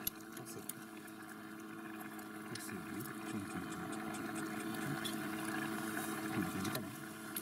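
Pot of milky soup pasta simmering on a camp stove: a steady bubbling hiss, with a few light clicks and taps as a basil shaker is shaken over it.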